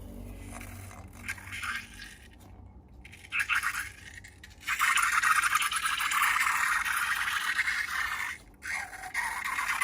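Crackly scraping and stirring of slime in a container, in short spells at first and then steady and louder from about halfway, with a brief pause near the end.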